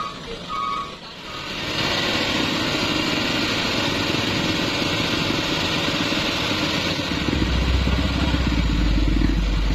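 Vehicle engines running steadily, with a deeper, louder engine rumble coming in about seven seconds in.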